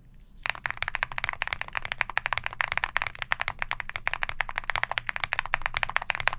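Fast typing on a mechanical keyboard fitted with copper-plated full metal keycaps: a dense run of keystrokes that starts about half a second in.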